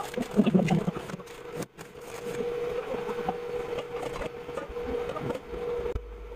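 Large pot of water at a rolling boil as dry thin wheat noodles soften and sink into it: bubbling water, with small crackling clicks from the stiff strands in the first second, over a steady hum.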